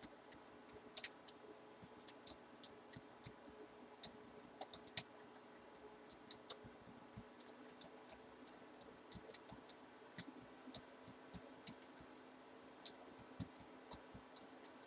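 Faint, irregular light clicks and ticks, a few each second, over a faint steady electrical hum; otherwise near silence.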